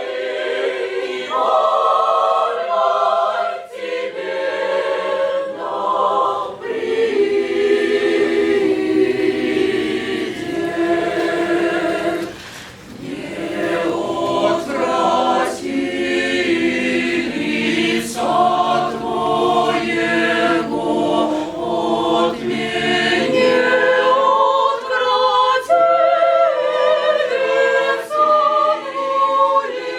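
Church choir singing a cappella, several voices in harmony, with a short break between phrases about halfway through.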